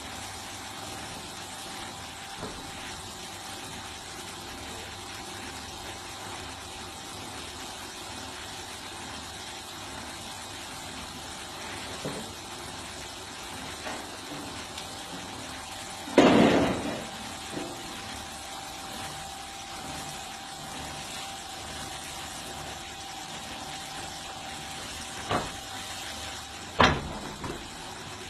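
Automatic rotating cow brush running with a steady motor hum. A loud knock comes a little past halfway, and two sharper knocks come near the end.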